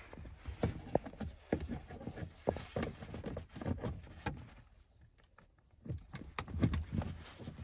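Scattered plastic clicks and knocks of an OBD2 scanner plug being fumbled against the diagnostic port under the dashboard as it is lined up and pushed in, with a short lull about two-thirds of the way through.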